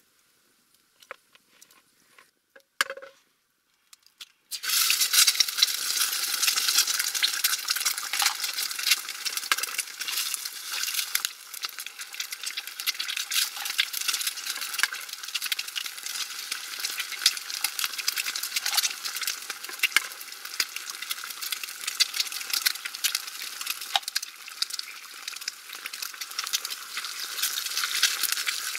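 Eggs frying in hot oil in a frying pan over a campfire: a loud, dense sizzle with frequent sharp pops, starting suddenly about four and a half seconds in after a few faint clicks.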